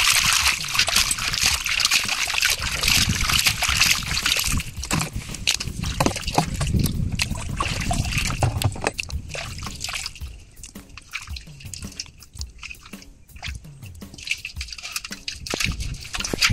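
Water sloshing and trickling: a steady rush for the first few seconds, then scattered splashes and clicks that grow quieter.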